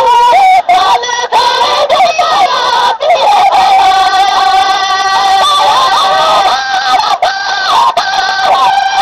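A male voice singing a Sindhi molood, a devotional song in praise of the Prophet, in an ornamented melismatic style: winding turns, then a long held note through the middle, then more turns near the end.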